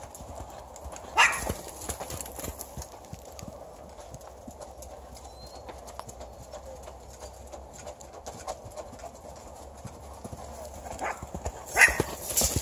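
Hoofbeats of a saddled horse going around a round pen on sand footing, loudest as it passes close by near the end.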